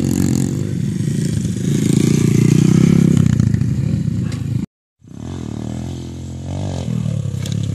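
Small dirt bike engine running and revving, loudest about two to three seconds in. The sound cuts out for a split second near the middle and resumes with the engine quieter.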